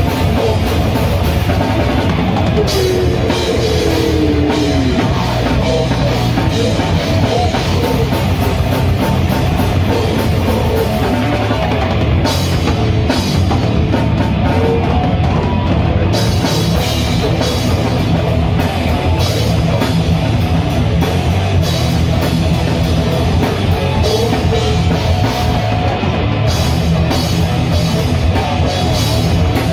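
A groove metal band playing at full volume in a small rehearsal room: drum kit, distorted electric guitars and bass guitar, with a vocalist screaming into a microphone.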